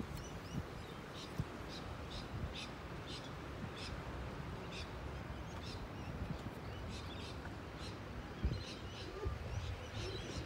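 Small birds chirping, many short high calls a second or so apart, over a steady low outdoor rumble.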